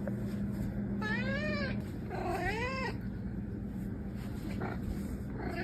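Domestic cat meowing twice: two drawn-out meows that rise and then fall in pitch, one straight after the other, over a steady low hum.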